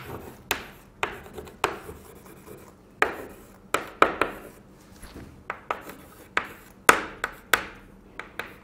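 Chalk writing on a blackboard: sharp irregular taps as the chalk strikes the board, each followed by a short scratchy stroke as letters are drawn.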